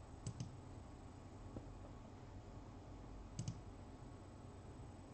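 Two quick double clicks about three seconds apart, over faint room tone, with a third pair starting right at the end.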